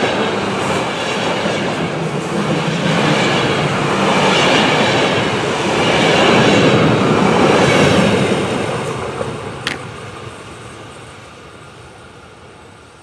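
ÖBB Railjet passenger train rolling past: a steady rumble of wheels on rail. It is loudest as the last coaches pass, then fades away as the train recedes.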